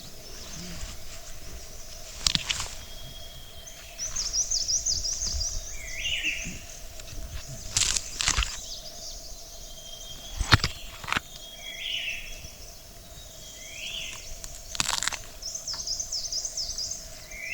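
Small birds singing repeated bright trilling phrases and short chirps. A few sharp knocks sound now and then, over a faint steady hum.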